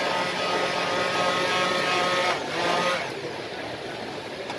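Hand-held electric stick blender running in a steel mug of milky coffee, frothing it, with a steady motor whine; it stops about three seconds in.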